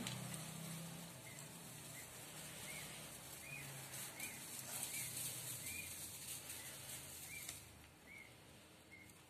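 Newly hatched duckling peeping faintly: short, thin, rise-and-fall peeps about once or twice a second, over a low steady hum.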